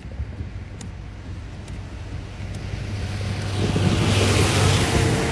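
A motor vehicle passing by: a steady engine hum with rising tyre and road noise that swells to a peak about four seconds in, then begins to fade.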